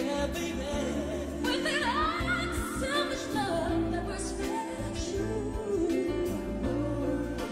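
Background music: a song with a singing voice over instrumental accompaniment and a steady bass.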